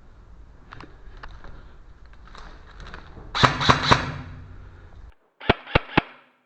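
Airsoft gun firing three quick shots about a quarter second apart. After a brief dropout in the sound, it fires another three sharp shots at the same pace.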